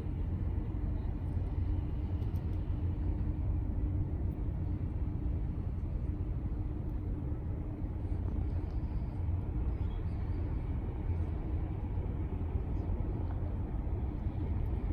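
Steady low outdoor rumble, with a faint steady hum that fades out about halfway through.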